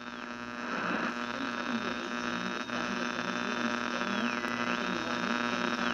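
Electronic intro sound: a steady buzzing hum with a thin high tone above it that drops in pitch and comes back up, a few times over.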